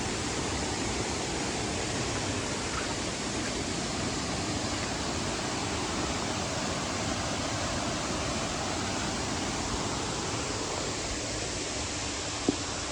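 Steady, full rush of water falling at a tropical waterfall, with a single short sharp click near the end.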